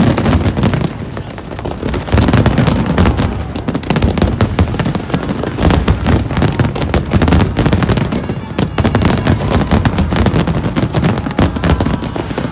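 An aerial fireworks display in a dense, continuous barrage: many shells bursting and crackling on top of one another, with deep booms and sharp cracks and no break, easing briefly about a second and a half in.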